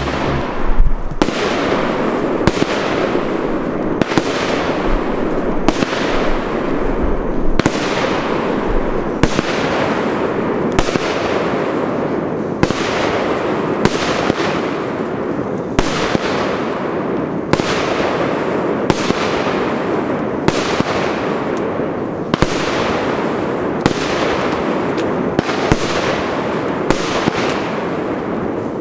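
Evolution Snake Eyes multicolour firework battery firing a steady sequence of single shots, a sharp bang about every second and a half over a continuous hiss.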